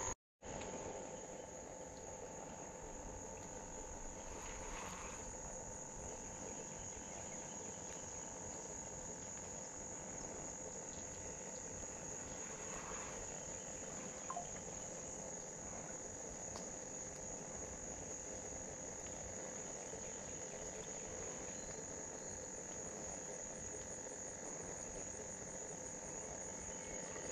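Quiet, steady high-pitched insect chorus, with fainter steady lower tones beneath it. The sound drops out for a split second right at the start.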